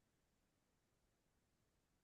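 Near silence: only a very faint noise floor.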